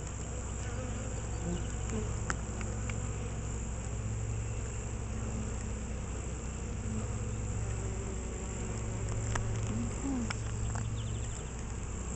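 Many honeybees buzzing at a hive entrance: a steady low hum, with single bees passing close now and then.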